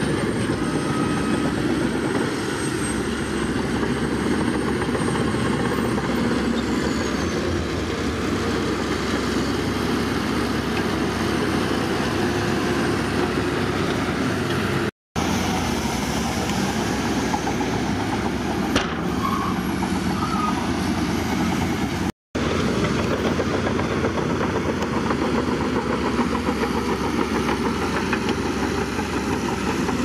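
Diesel engine of a Shantui crawler bulldozer running steadily while pushing sand. The sound drops out to silence twice for a fraction of a second, around the middle.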